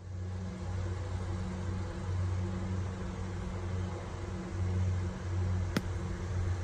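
A golf club strikes through the sand and ball in a greenside bunker: one sharp click near the end. Under it runs a steady low drone, like an engine running.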